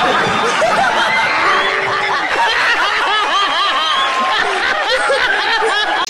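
A group of people laughing and chuckling together, many overlapping short laughs in a dense, loud mix.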